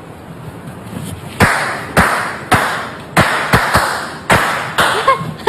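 A rapid, uneven run of about eight sharp pops over three and a half seconds, each trailing off in a short hiss: party poppers set off for a surprise birthday.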